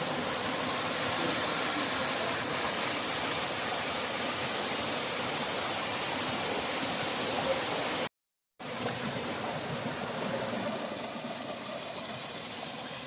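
Steady rushing of a waterfall. It cuts out completely for about half a second about eight seconds in, then returns a little softer.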